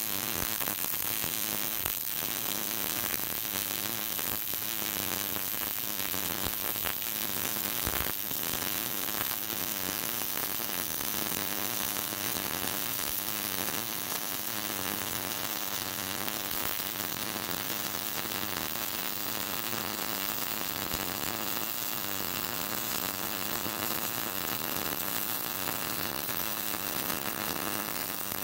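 Electric welding arc burning steadily, a continuous buzzing hiss as a seam is welded on a steel-pipe stove body.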